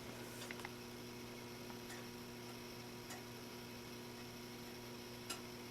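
Faint steady electrical mains hum, with a few soft ticks scattered through it, the most distinct one near the end.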